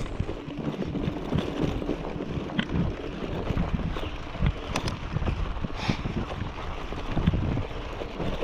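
Mountain bike rolling over a rough dirt road strewn with stones: tyres crunching, with irregular knocks and rattles from the bike and wind on the microphone.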